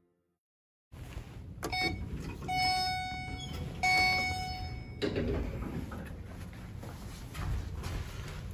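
Two short electronic beeps of the same pitch, about a second and a half apart, as an elevator hall call button is pressed. They are followed by a low rumble as the elevator doors slide open, and a click at the end.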